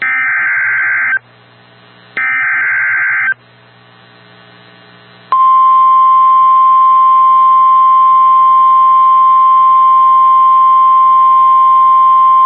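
Emergency Alert System SAME header data bursts over NOAA Weather Radio: two harsh, screechy digital bursts about a second long each, a second apart. About five seconds in, the steady single-pitch 1050 Hz warning alarm tone begins and holds. The tone signals that a warning message follows, here a severe thunderstorm warning.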